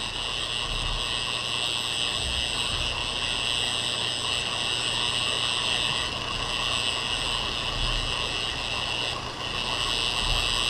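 Steady hiss of background noise with a few faint, high, steady whining tones and a faint low hum underneath; no speech.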